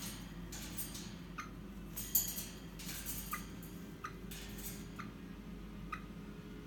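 Soft rustling and faint ticks about once a second from birdseed held in an open palm, as an eastern rosella comes to the hand and pecks at the seed. The rustles come mostly in the first half.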